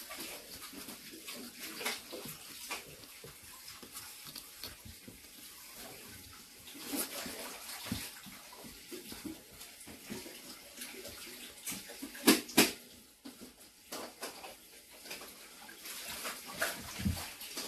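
Rustling and scratching on cardboard as kittens paw and roll against a hand that strokes them, with scattered light clicks and two sharper knocks about twelve seconds in.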